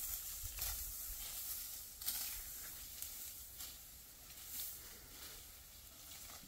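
Dry wheat stalks rustling and crackling in separate strokes, about one a second, fading slightly toward the end.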